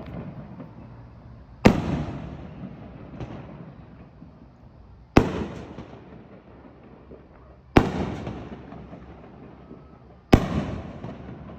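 Fireworks going off: four sharp bangs a few seconds apart, each followed by a rumbling tail that dies away over a second or two.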